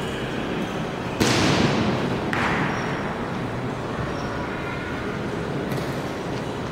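Honor guards' boots stamping on a stone floor as the guard detail moves off: two loud impacts about a second apart, each echoing in the hall, over a steady crowd murmur.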